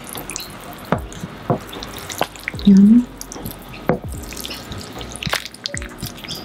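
Wooden spoon stirring a slow cooker of chicken and vegetables in broth: liquid sloshing and dripping, with the spoon knocking against the ceramic pot several times.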